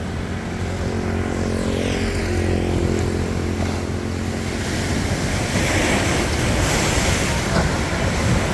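Sea waves washing up on the beach, swelling about five seconds in, with wind on the microphone. An engine hum is heard under the surf for the first few seconds and fades out.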